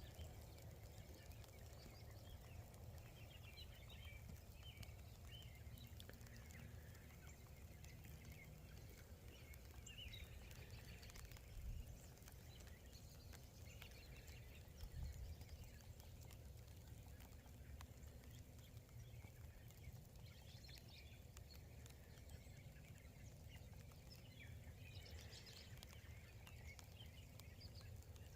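Faint, scattered chirps of small birds over a low outdoor rumble, with two soft thumps about twelve and fifteen seconds in.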